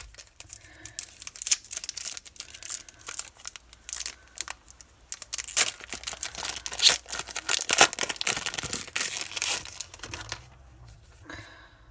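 Shiny plastic wrapper of an AFL Teamcoach trading-card pack being torn open and crinkled, a dense crackle with sharp rips. It dies down about ten seconds in as the cards come out.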